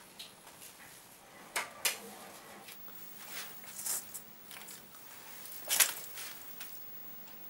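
A handful of short rustling, scraping handling noises, the loudest a little under two seconds in and about six seconds in, with low room noise between.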